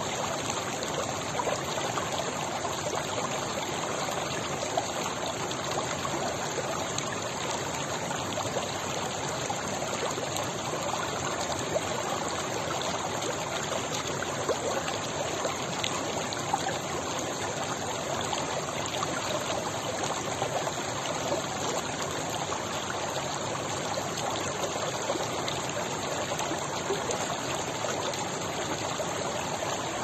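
Shallow stream running steadily: a constant rush of flowing water with fine trickling splashes through it.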